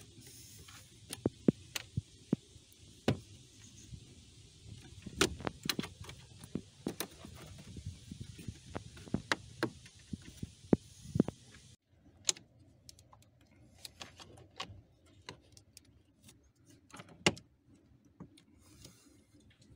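Irregular sharp plastic clicks and knocks as the plastic cowl panel over a BMW X5 E53's cabin air filter housing is pressed back onto its clips by hand, with the rubber seal along its edge pushed down.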